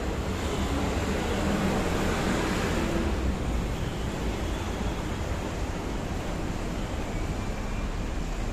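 Steady city road traffic noise from buses and cars on a busy street, with wind rumbling on the microphone.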